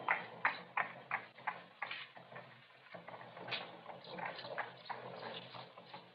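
Hard steps clicking on a street surface, sharp and regular at about three a second, turning softer and less regular after about two seconds, over a faint low hum.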